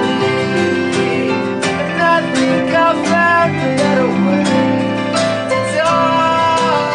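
A small acoustic band playing live: strummed acoustic guitar and a second guitar over sustained keyboard chords.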